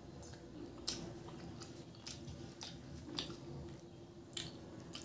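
Chewing of puri (luchi) with chicken curry eaten by hand: wet mouth sounds with about five sharper clicks and smacks at irregular moments.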